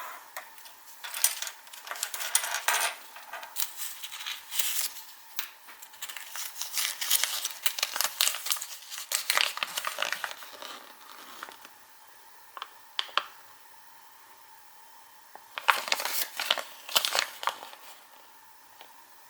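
Foil wrapper of a Kinder Surprise egg crinkling and tearing in irregular bursts, with sharp clicks and taps of small hard pieces being handled.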